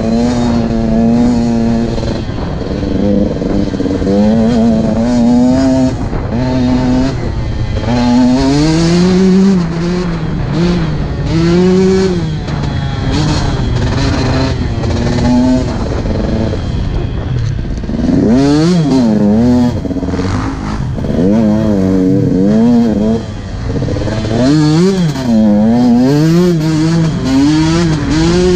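Dirt bike engine being ridden hard off-road: it holds a fairly steady pitch through the first half, then revs up and down quickly with the throttle in the second half. Clattering and scraping sounds from the bike over the rough trail run under the engine.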